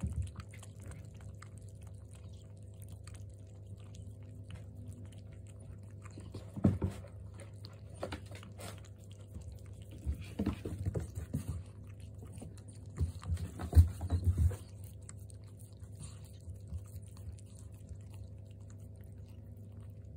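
Two kittens lapping milk from a shallow dish: wet, clicky lapping in several short spells, loudest a little past the middle, over a steady low hum.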